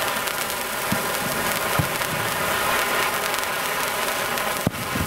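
Hand-held sword-shaped spark fountain firework (the Zorro sword) burning with a steady loud hiss, broken by a few small pops and crackles, one sharper near the end.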